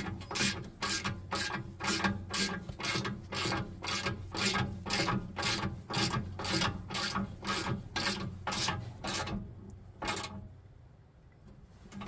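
Hand ratchet clicking as it tightens a nylon lock nut onto a bolt, in an even rhythm of about three clicks a second. It stops about nine seconds in, with one last click a second later.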